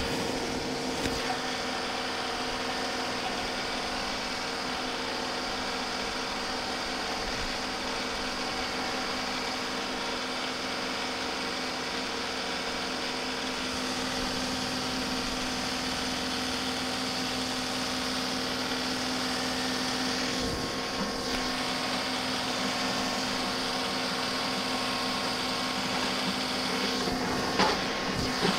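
John Deere 2-series compact tractor's diesel engine running steadily as it pulls a box blade with its scarifiers down across partly frozen ground. A few brief knocks, one about 20 seconds in and one near the end.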